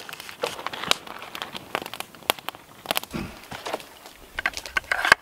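Knife slicing through a slab of bacon on a paper plate, a run of small clicks and crackles. About three seconds in this gives way to gloved hands handling a nylon gear harness and pouches, rustling and clicking, over a low rumble.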